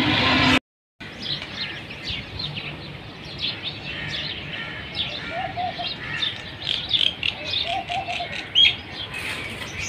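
Many small birds chirping busily, with a dove giving short low coos twice, about five and eight seconds in. At the very start a brief stretch of street traffic noise cuts off abruptly.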